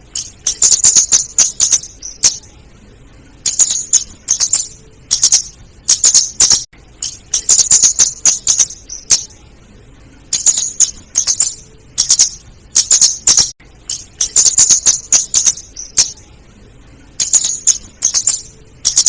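Female flowerpecker calling: rapid runs of sharp, high ticking notes in bursts of one to two seconds, repeating with short pauses, as used in a lure recording.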